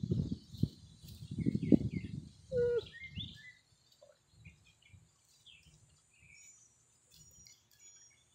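Wind buffeting the phone's microphone in irregular low gusts for the first three seconds or so, then small birds chirping in short, scattered calls over a quiet background.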